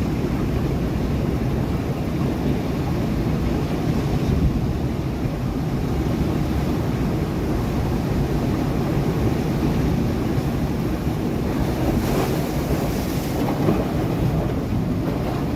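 Sea waves breaking against rocks: a continuous, low-heavy rush of surf, with a brighter hissing wash about twelve seconds in.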